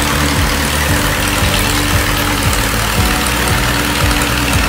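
Hatz Classic biplane's piston engine and propeller running steadily at taxi power, with music playing over it.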